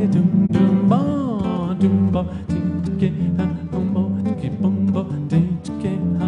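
A man singing over his own nylon-string acoustic-electric guitar, plucked and strummed chords under a melodic vocal line that glides in pitch about a second in.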